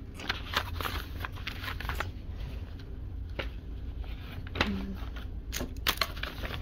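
Sheets of paper being handled and shuffled, rustling in short scattered strokes with a few sharper snaps near the end.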